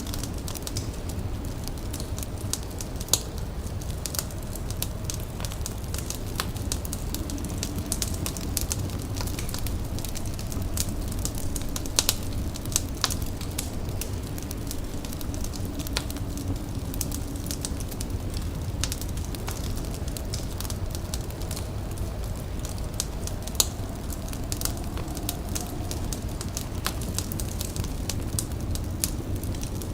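Fire crackling with irregular sharp pops and snaps over a steady low rumble.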